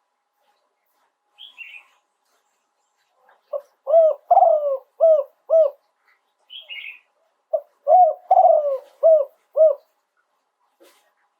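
Spotted dove cooing: two phrases of five or six short coos each, a couple of seconds apart. A brief high chirp comes before each phrase.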